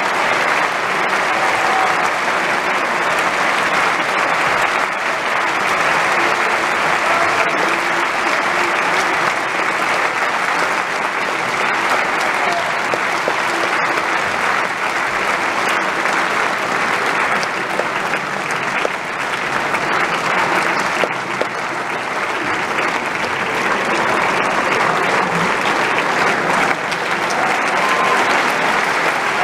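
Opera house audience applauding steadily, the dense clatter of many hands clapping at once at a curtain call.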